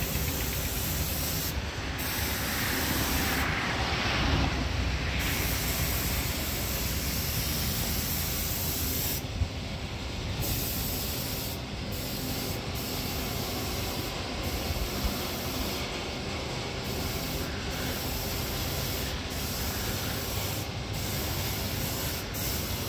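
Compressed-air spray gun hissing steadily, with a low rumble underneath.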